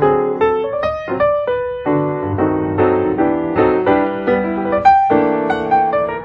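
Background piano music: a keyboard tune of struck notes and chords, several notes a second, each note ringing and fading.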